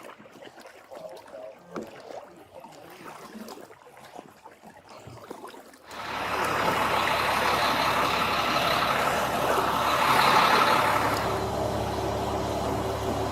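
A quiet stretch with faint scattered sounds, then about halfway through a high-water rescue truck's engine comes in abruptly, loud and steady, and keeps running.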